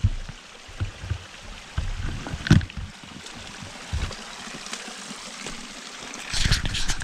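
Hiker's footsteps on a wet, muddy trail over a steady trickle of water running down the path. One footfall about two and a half seconds in is sharper than the rest, and there is a brushing rustle near the end.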